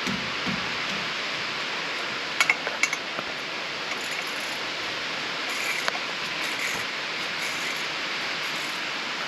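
A few sharp metallic clinks of hand tools and metal parts, a quick cluster about two and a half seconds in and lighter ones near six seconds, over a steady hiss.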